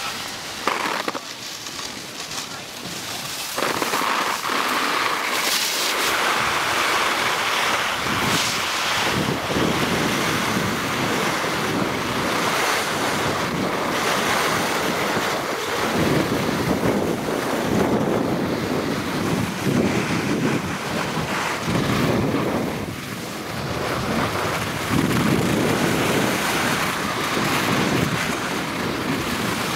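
Wind buffeting the microphone of a camera moving fast down a snow slope, mixed with the hiss of sliding over groomed snow. It gets louder about four seconds in, then swells and eases in waves.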